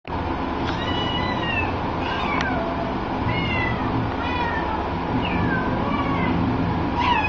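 A cat meowing: a string of short cries, each falling in pitch, about one a second.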